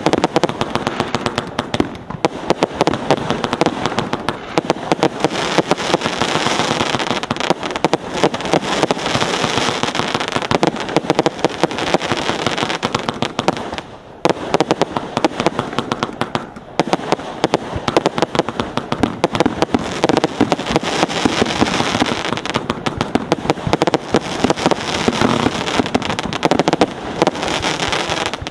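Gladiator 100-shot firework cake firing: a rapid, dense string of launches and bursts, with two short lulls about halfway through.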